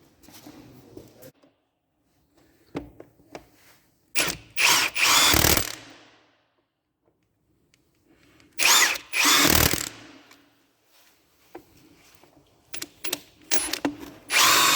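A power drill or driver runs in three short bursts of about two seconds each, tightening bolts, with light metallic clicks and taps between the bursts.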